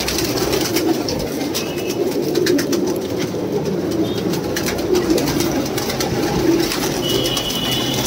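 A flock of domestic pigeons cooing together in a steady, dense chorus, with scattered sharp clicks and a short high tone near the end.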